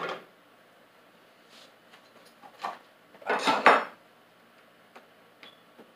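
Cookware clattering on a gas stove's metal grate: a short knock about two and a half seconds in, then a louder half-second clatter around three and a half seconds in, and a couple of faint ticks near the end.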